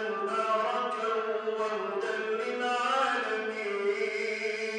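A man's solo voice chanting unaccompanied into a microphone, one long melismatic line of held notes with the pitch winding up and down.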